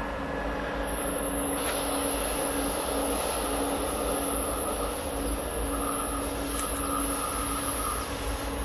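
A train rolling past on the track, a steady noise of wheels on rail with a faint hum coming and going.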